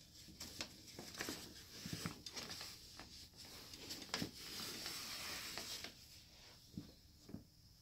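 Brown paper bag rustling and crinkling in short bursts, with scattered light scratches and taps; a longer stretch of continuous rustling comes about four to six seconds in.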